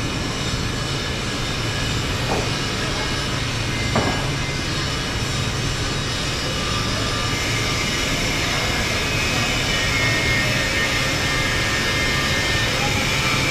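Steady machinery hum and din of a heavy fabrication workshop, with two light knocks about two and four seconds in and a thin higher whine joining about halfway.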